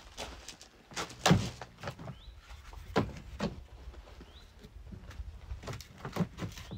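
Wood being split by hand with an axe: sharp knocks in pairs, about every two seconds, the loudest a little over a second in.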